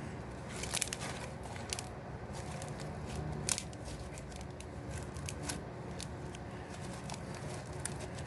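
Homemade slime being squeezed and worked by hand close to the microphone, giving irregular small clicks and pops.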